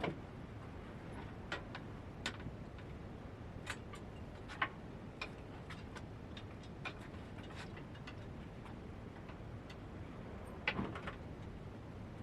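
Scattered light clicks and knocks, a dozen or so at uneven intervals, with a louder short clatter about eleven seconds in, over a low steady hum.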